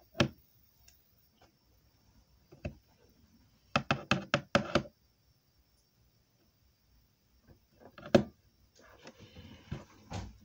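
Slime-covered hands smacking and snapping apart: one sharp smack right at the start, another a few seconds in, a quick run of about six around the middle, one more later, then softer sticky rustling near the end.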